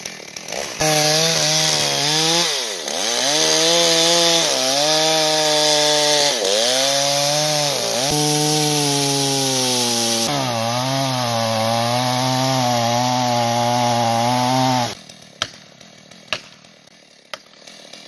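Two-stroke chainsaw cutting into a large birch trunk at high revs, its pitch dipping three times as the chain loads in the cut, then stopping suddenly. A few sharp clicks follow.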